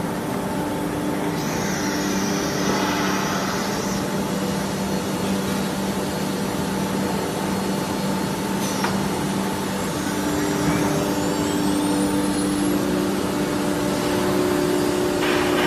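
SUDIAO 4-axis ATC CNC router running with a steady mechanical hum of several tones. A whine rises in pitch from about ten seconds in as the spindle speeds up. A rougher, noisier sound comes in right at the end.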